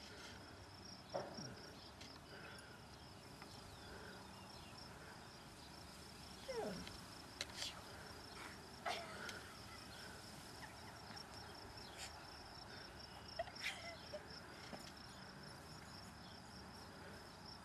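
Insects trilling steadily in the grass, a high, fast-pulsing chirp that never stops. A few faint brief sounds are scattered through it, among them short falling squeaks and soft clicks.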